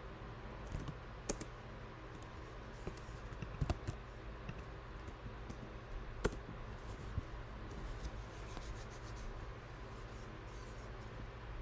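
Computer keyboard keystrokes and clicks, scattered and irregular, with a few sharper single clicks and a quicker run of typing near the end, over a low steady hum.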